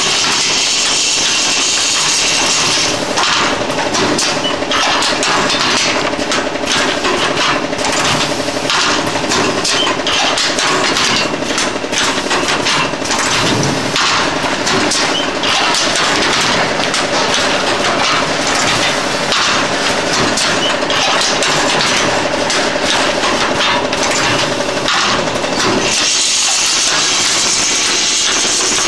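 Automatic paper tube machine for thermocouple tubes running: a dense clatter of rapid knocks and clicks over a steady hum. The clatter starts a few seconds in, after a steady hiss, and drops back to the hiss near the end.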